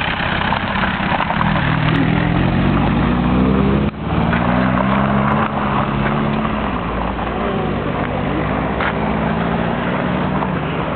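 Mk2 Volkswagen Golf hatchback engine revving hard as the car accelerates and slides away on loose gravel. The pitch climbs over the first few seconds, breaks off briefly about four seconds in, then rises again, under a steady rush of tyre and gravel noise.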